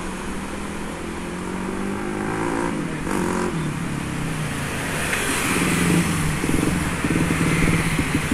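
Suzuki GSX-R150 single-cylinder engine riding up close and settling into an evenly pulsing idle near the end, with road traffic passing behind.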